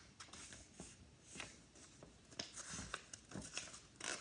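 Faint rustling and small clicks of a picture book's paper pages being handled and turned, with a soft low thump about three seconds in.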